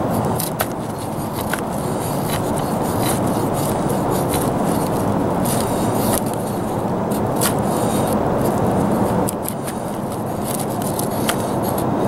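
A thin carbon-steel trade knife blade shaving curls down a split of wood to make a feather stick: repeated scraping strokes with many small sharp ticks, over a steady rushing background noise.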